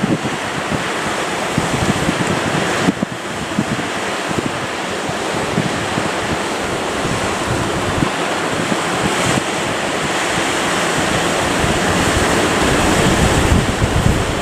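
Strong wind buffeting the microphone over the steady rush of sea waves, the gusts growing a little stronger toward the end.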